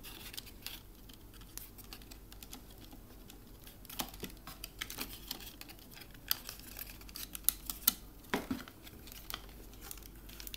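Scattered plastic clicks and cardboard rustling as a GoPro Hero3 camera in its plastic housing is handled and worked free of its cardboard packaging insert, the sharpest clicks coming between about seven and eight and a half seconds in.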